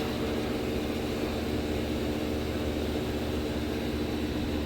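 Steady machine hum with a few constant tones and no knocks or tool strikes.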